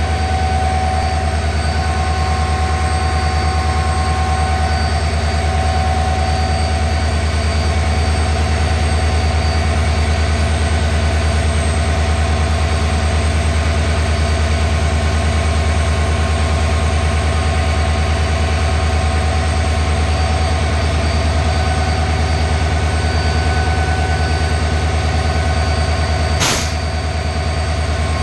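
WDP4D diesel locomotive's EMD 710 two-stroke V16 engine, heard through its open engine-room hatch, running steadily at a constant speed with a deep hum and steady whining tones. A single brief knock near the end.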